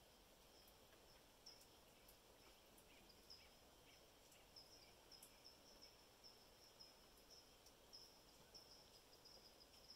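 Near silence: faint outdoor ambience, a soft, even hiss with short, high-pitched chirps repeating irregularly.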